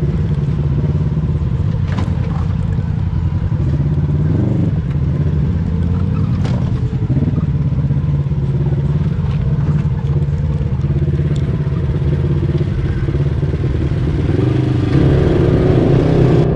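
Polaris Sportsman 1000 H.O. ATV's twin-cylinder engine running steadily at low revs while riding a rocky trail, with a few sharp clacks along the way. About fifteen seconds in it revs up and grows louder.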